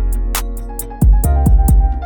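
Background music with a steady electronic beat: a deep kick drum about every half second, crisp ticks on top and sustained keyboard notes.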